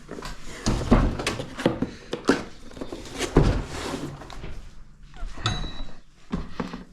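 Irregular knocks, clunks and light rattles as the parts of a bench vise and its packaging are handled and put down.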